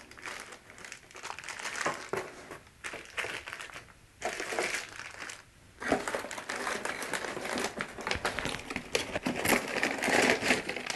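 Plastic packaging bags crinkling and cardboard box inserts rustling and scraping as they are handled. The crinkling is louder and busier in the second half.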